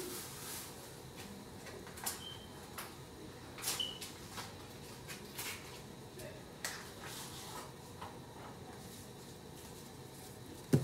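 A few faint, scattered clicks and light knocks over quiet kitchen room tone, with two brief faint squeaks early on: someone handling things in a kitchen.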